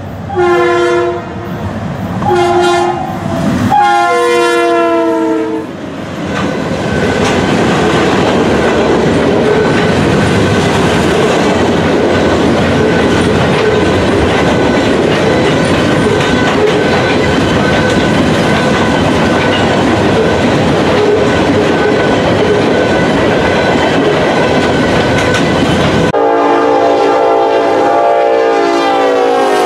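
Freight locomotive horn sounding several blasts, the last one long, then a line of freight gondola cars rolling past with a steady wheel-on-rail clickety-clack. Near the end another locomotive horn sounds one long blast that drops in pitch at its close.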